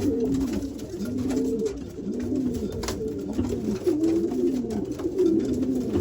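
Several racing-pigeon cock birds cooing over one another in a loft, a steady run of overlapping coos. It is typical of cocks driving and claiming nest boxes.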